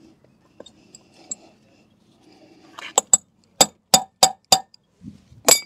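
A polished stainless steel outboard propeller being tapped with a block of wood to knock it loose from the propeller shaft. About seven sharp, ringing clinks come in the second half, roughly three a second, after a few seconds of faint handling.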